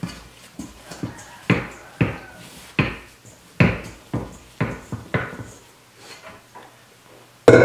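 Stainless steel mixing bowl knocking and rattling on the kitchen countertop about twice a second as risen bread dough is worked and scraped around inside it, then one louder clunk near the end.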